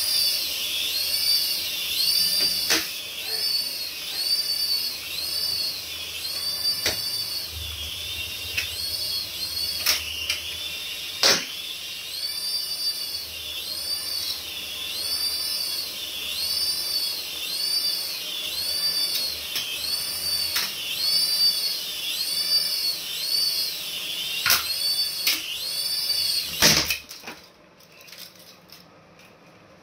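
Battery toy's electronic siren-like sound effect: a high warble that rises and falls about one and a half times a second, with a few sharp clicks. It cuts off suddenly near the end.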